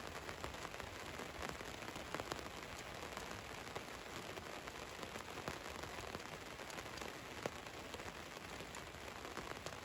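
Rain falling on the roof of a van, a steady patter with many small scattered drop taps.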